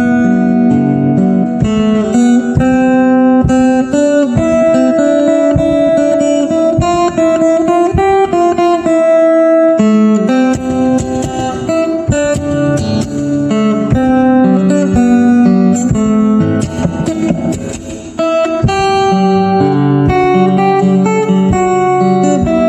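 Solo acoustic guitar played fingerstyle: a plucked melody over chord accompaniment, with percussive taps on the guitar body standing in for a bass drum and shaker. The music thins out briefly near the end before picking up again.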